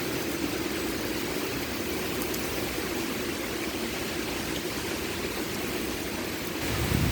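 Heavy rain pouring steadily in a thunderstorm downpour.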